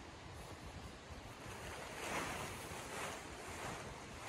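Tent fabric rustling as it is lifted off the ground and shaken out, with two louder swishes about two and three seconds in.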